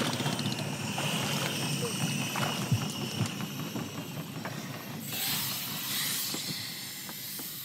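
Hookah diver climbing aboard a wooden boat: water splashing and dripping with a low engine hum under it, and two knocks against the wooden hull about three seconds in. About five seconds in, a rush of hissing air comes from his air-fed diving mask and hose as the mask comes off.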